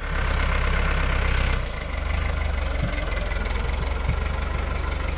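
New Holland TT75 tractor's diesel engine running steadily, settling to a slightly quieter idle about a second and a half in.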